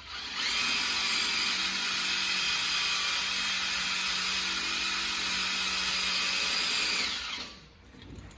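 Power drill with a grinding bit running steadily for about seven seconds, grinding rust off a steel plow, then winding down near the end.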